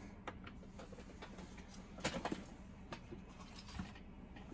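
Faint clicks and light taps of small plastic and metal parts being handled with a thin metal pick, with a short cluster of clicks about two seconds in.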